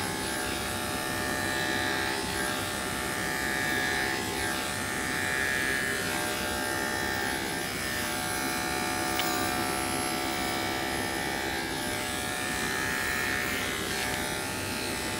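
Electric dog grooming clippers running with a steady hum as they cut through a puppy's curly coat along its back and sides, the tone changing a little as the blade moves through the hair.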